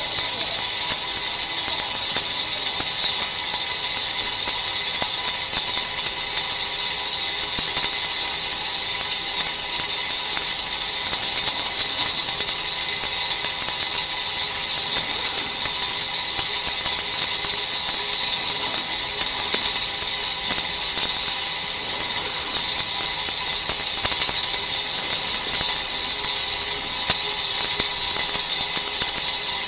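DBL 3000 on-car brake disc lathe turning a brake disc on the car's hub while its cutting tool skims the disc face: a steady high metallic hiss over a faint steady motor whine, at an even level throughout.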